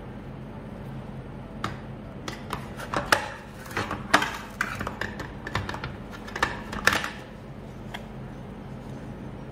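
Hard plastic slime jars clacking and knocking against each other and a metal tray as they are picked up and set down: an irregular run of sharp clicks for about five seconds, then one more click, over a steady low hum.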